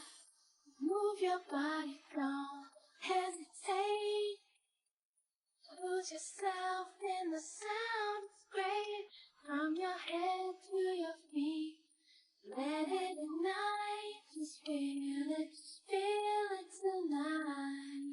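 A child singing a melody in short held phrases, with no accompaniment, broken by a pause of about a second.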